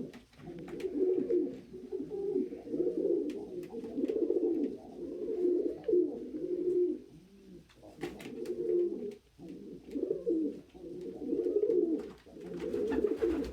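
Domestic pigeons cooing: repeated low rolling coos in phrases of one to two seconds with short breaks, and a few faint sharp clicks.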